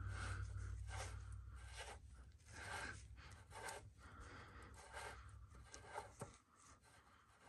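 Faint scratching and rubbing as a loosened oil drain plug is turned out of a truck's oil pan by hand, with a couple of small clicks near the end. A low hum stops about two seconds in.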